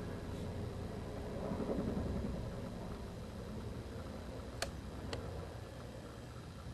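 Distant helicopter overhead: a low, steady rotor and engine rumble that swells slightly and then slowly fades. Two sharp clicks sound near the end.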